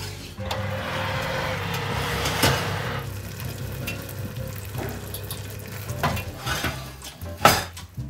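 Hot baked chicken breasts and melted cheese sizzling in a glass baking dish for the first few seconds, then a few light knocks and a sharp clack near the end as the oven door is shut.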